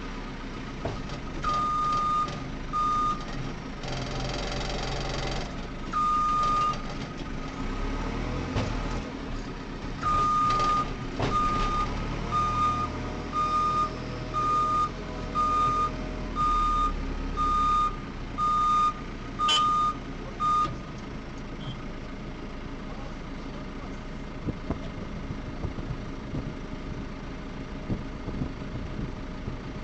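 A reversing alarm beeping about once a second, in short runs early on and then steadily until about twenty seconds in, over a diesel engine running. A short loud rush of noise comes about four seconds in.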